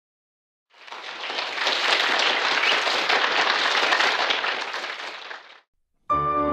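Audience applauding, swelling up about a second in and dying away after about five seconds. Just before the end, a grand piano starts to play.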